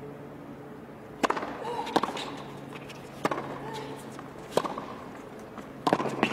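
Tennis rally on a hard court: the ball is hit back and forth with racquets, heard as about six sharp pops of strikes and bounces, roughly one to one and a half seconds apart.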